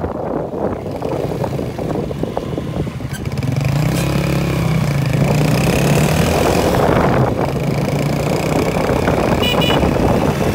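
A motorcycle riding along a road: steady engine and road noise, with the engine note growing stronger and rising from about three seconds in. A brief high-pitched beep sounds near the end.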